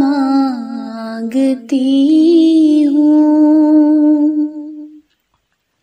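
A woman singing an Urdu devotional dua unaccompanied, drawing out the words 'ata' and 'mangti' ('I ask for bounty') in long held notes; the last note ends about five seconds in.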